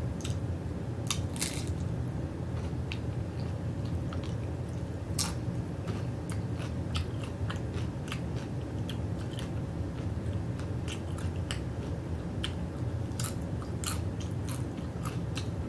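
Close-up chewing and crunching of tortilla chips loaded with nacho toppings, with sharp crunches scattered irregularly throughout. A steady low hum runs underneath.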